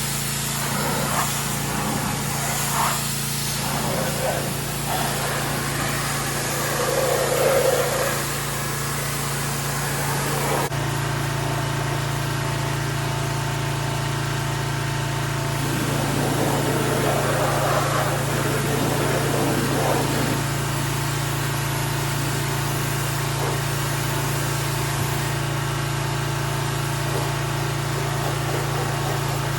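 Pressure washer running steadily, with a constant low motor hum under the hiss of the water jet blasting grime off a truck's underside. The hum changes abruptly about eleven seconds in.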